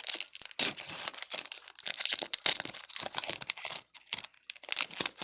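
Foil Pokémon booster pack wrapper being torn open and crinkled: quick irregular crackles that thin out near the end.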